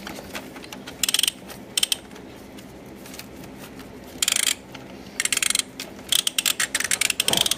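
Rapid ratchet-like clicking of a plastic toy activity table being worked by a puppy, in short bursts that come closer together and run almost without a break near the end.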